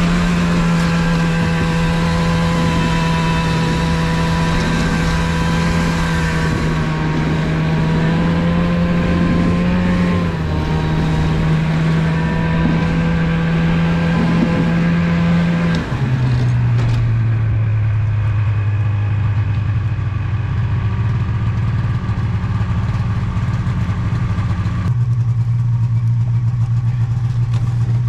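Polaris snowmobile engine running steadily while towing a loaded sled, then dropping to a lower, slower note about 16 seconds in as the machine slows and settles to idle.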